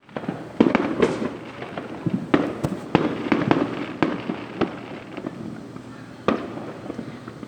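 Fireworks going off in a dense, irregular barrage: overlapping pops and crackles with a string of louder sharp bangs that echo, like a war zone.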